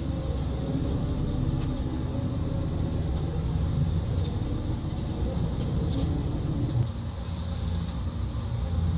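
Forestry harvester's diesel engine running steadily with a low rumble.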